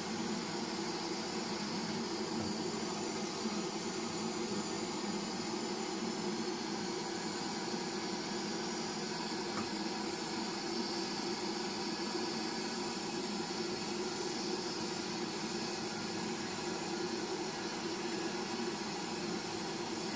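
Two gas blowtorches burning steadily with a continuous hissing rush, their flames heating a piece of knife steel for hardening.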